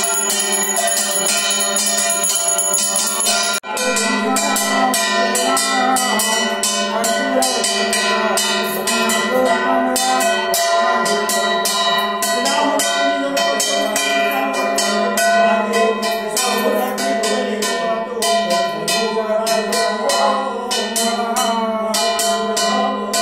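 Puja hand bell rung rapidly and without pause during aarti, its strokes running together into a continuous ringing. From about four seconds in, a melody is heard along with it.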